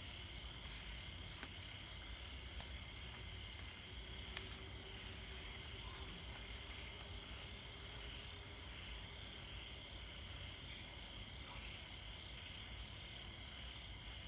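Steady chorus of night insects chirping: several high trills at once, one of them pulsing rapidly. A few faint clicks sound in the first half.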